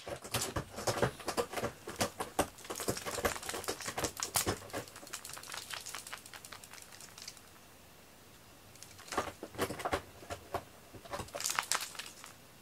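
Light, rapid clicks, taps and rustles of a cat playing with a feather toy on a string across foam floor mats. The sound is busy for the first half, then goes nearly quiet, with two short flurries of clicking near the end.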